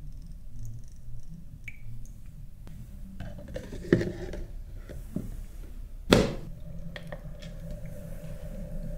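Muji aroma diffuser being handled: its plastic cover is set onto the base with a knock about four seconds in, then a sharp click about six seconds in, after which the diffuser's steady hum starts as it switches on.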